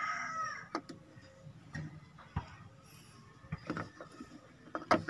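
Engine lube additive draining from an upturned plastic bottle into the filler neck: a few soft, irregular glugs and clicks.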